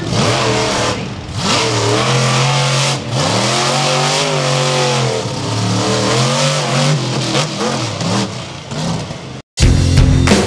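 Monster truck engine revving up and down again and again as the truck races on a dirt course. Near the end the engine sound cuts off abruptly and rock music with drums starts.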